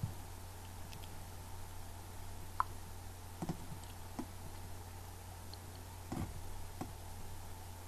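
Faint computer mouse clicks, about half a dozen at irregular intervals, over a steady low hum.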